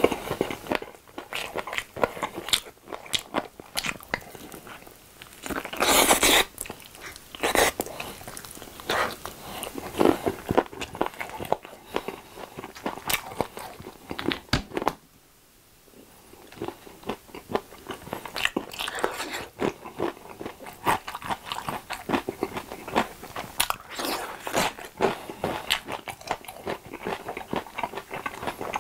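Close-miked eating of sauce-glazed fried chicken drumsticks: biting, crunching and wet chewing. There is a loud crunchy burst about six seconds in and a brief pause near the middle, after which pickled radish cubes are chewed as well.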